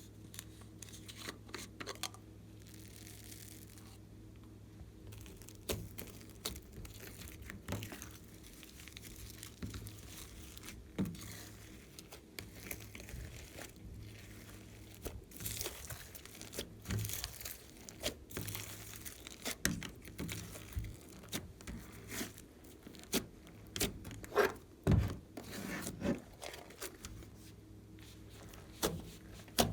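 Hands working glossy slime, stretching and squishing it, with irregular sticky pops and crackles that come thicker in the second half. A steady low electrical hum runs underneath.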